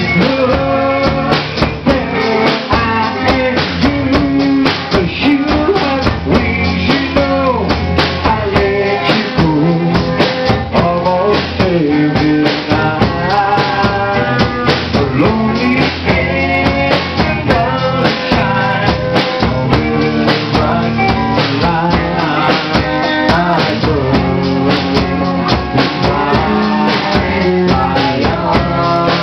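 A pop-rock song with a drum kit, bass and guitar keeps a steady beat, and a melodic lead line runs over it.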